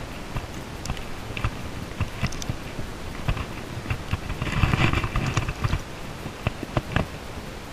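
Close handling noise as hands unhook a foam popper fly from a small largemouth bass: scattered clicks and rubbing, with a louder scuffling burst just past the middle.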